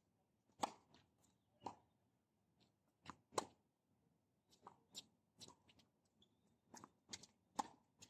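Tennis rally on a hard court: a string of sharp pops from rackets striking the ball and the ball bouncing, every half second to a second. The loudest are the near player's serve about half a second in and his strokes about three and a half and seven and a half seconds in.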